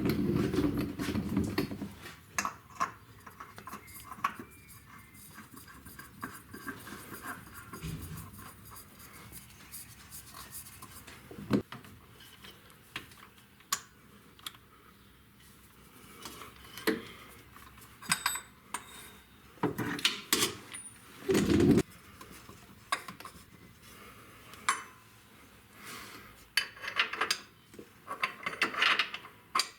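Metal clinking, knocking and scraping, heard as scattered sharp clicks with short clusters, from hand tools and small metal parts being handled during work on the car.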